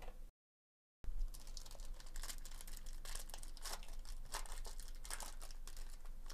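Foil Topps Chrome trading-card pack wrapper being torn open and crinkled by hand. It is a dense, irregular crackle that starts abruptly about a second in.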